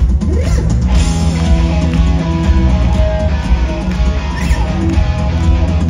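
Live rock band playing loud: electric guitar and bass over drums, with a heavy low end.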